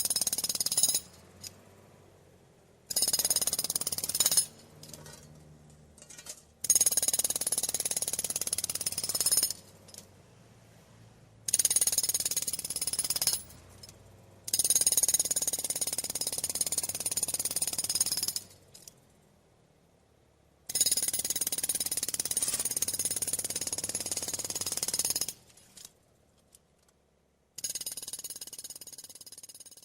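Road drill (jackhammer) hammering in repeated bursts of two to four seconds with short pauses between them, about six runs in all, the last one fading out.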